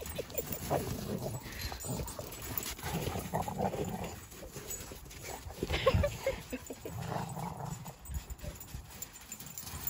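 Rhodesian Ridgebacks and a basenji puppy playing in snow: short dog vocal sounds come every second or two among the scuffle and footfalls of running paws.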